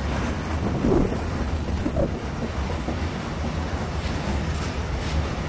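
Container wagons of a freight train rolling past close by, a steady rumble with a few knocks of the wheels, loudest in the first two seconds and then easing. A thin, very high squeal rides over it and fades out about four seconds in.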